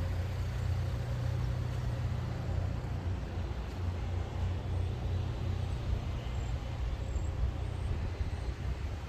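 Buick Cascada's power soft top lowering: a steady low mechanical hum with an even background whir.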